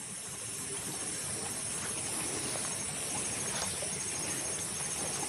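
Footsteps on a dirt footpath strewn with dry leaves, with a faint, rapid, high insect trill behind them from about a second and a half in.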